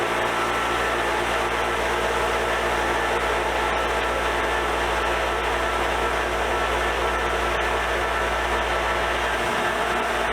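Electric wire wheel running steadily, a constant motor hum and scrubbing hiss as rust and black spray paint are brushed off steel sockets.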